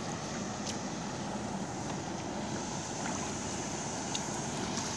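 Steady wash of water being stirred by someone wading waist-deep, mixed with wind on the microphone, with a few faint ticks scattered through it.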